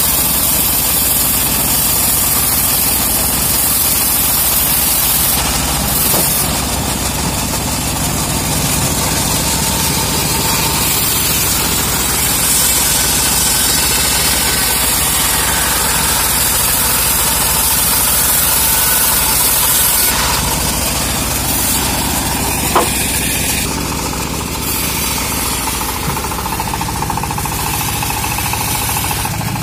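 Homemade log bandsaw sawing a teak log, driven by a stationary single-cylinder diesel engine that runs steadily throughout. The high hiss of the blade changes about 20 seconds in, and a single sharp knock sounds a little after that.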